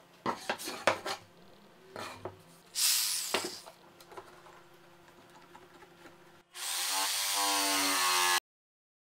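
Metal clicks and knocks of bar clamps being set on a plywood board, with a short scrape about three seconds in. Near the end a Stanley corded jigsaw starts up, its motor rising in pitch, runs steadily for about two seconds and stops suddenly.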